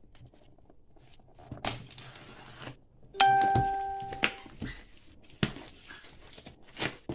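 A yellow box cutter slits the packing tape on a cardboard box, with scraping and a few sharp knocks as the box is handled. About three seconds in, a single chime-like ding rings out and dies away over about a second.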